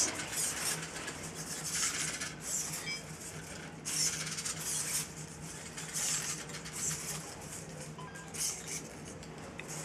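Hobby servo motors of a four-legged robot dog whirring in short spurts, about one a second, as its legs step across carpet, with light metallic clinks from its aluminium brackets over a faint steady hum.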